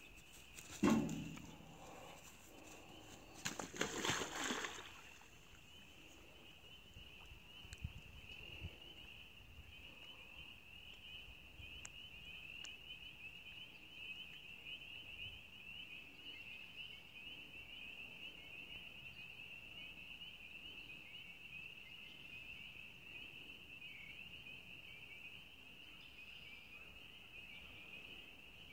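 A beaver running at full tilt collides with a pole: one sharp knock with a short ringing 'doink' about a second in, followed a few seconds later by splashing as the beaver plunges into the creek. After that, a steady high-pitched trilling chorus goes on, with the water lapping faintly.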